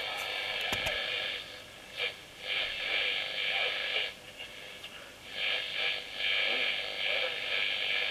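Long-wave radio reception from a homemade TRF receiver's speaker: a thin band of hiss and rattling noise that swells and fades several times as the coil's ferrite slug is turned. The BBC signal is drowned in the noise.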